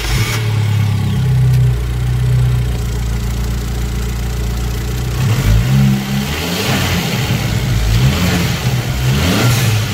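Abarth's turbocharged 1.4-litre four-cylinder engine at a fast idle just after starting, then blipped several times from about halfway in, the revs rising and falling. Each time the throttle closes, a rushing hiss comes from the dump valve venting boost.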